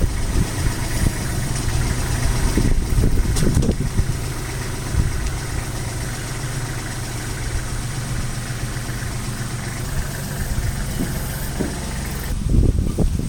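A vehicle's engine idling steadily at low revs.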